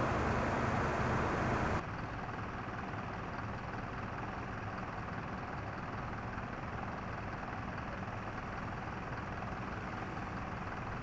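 A large engine running steadily at idle, typical of a fire engine's motor driving its pump at a fire scene. A louder rushing hiss over it in the first two seconds cuts off suddenly.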